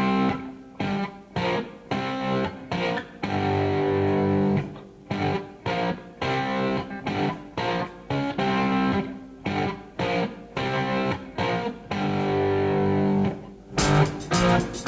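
Background music of plucked, fading notes. Near the end a louder, fuller part comes in.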